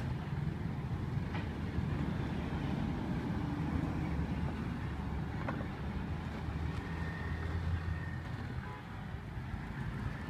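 Steady low rumble of outdoor street background noise, with a few faint clicks.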